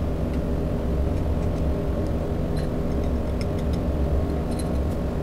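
Steady low machine hum with a few faint, light clicks of a metal spatula and glass sample vial being handled over a test tube.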